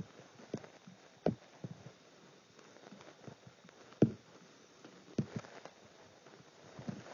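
Irregular soft taps of a fingertip on an HTC EVO 3D smartphone's touchscreen, about seven in all, the loudest about four seconds in.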